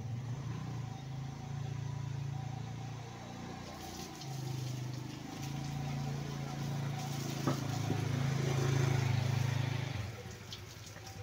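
Motorcycle engine running as the bike rides toward and close past the listener. It dips briefly about four seconds in, is loudest near eight to nine seconds, then falls away about ten seconds in.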